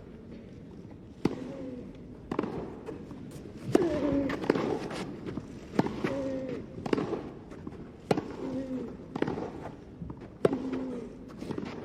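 A tennis rally: the ball is struck back and forth with sharp racket hits about once a second, and the players give short vocal grunts on many of the shots.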